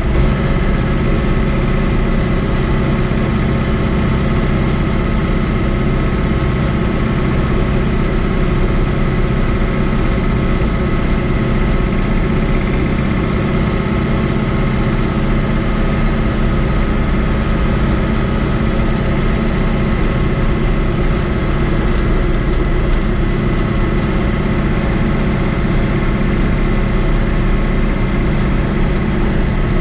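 Fiat 80-90 DT tractor's diesel engine running at a steady speed while driving on the road, heard from inside the cab.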